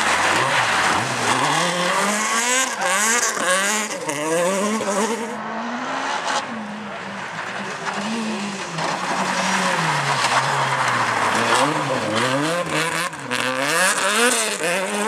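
Renault Clio rally cars driven flat out on a dirt stage, engines revving high and dropping again and again as they shift and lift for corners, with tyre and gravel noise.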